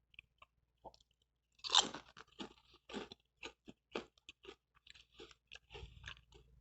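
A person biting into a piece of fried sambosa pastry skin fried into a cracker, then chewing it: one loud crunch just under two seconds in, followed by a run of short, crisp crunches.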